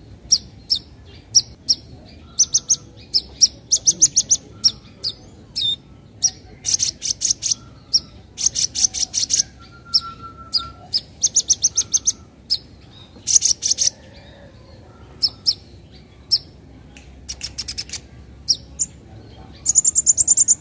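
Young kolibri ninja sunbird calling: sharp, high chips and fast chattering runs ('nyecret nyecret') in short bursts every second or so, with the loudest, densest run near the end.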